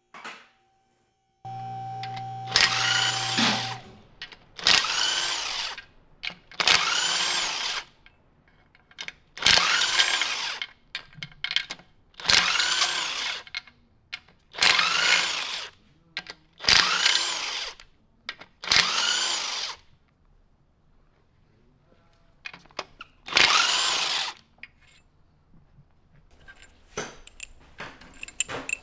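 A handheld power tool run in about nine short trigger pulls, each spinning up and winding down over about a second, while bolts are run out of a Genesis Coupe 2.0T engine during its teardown. Light metal clinks follow near the end.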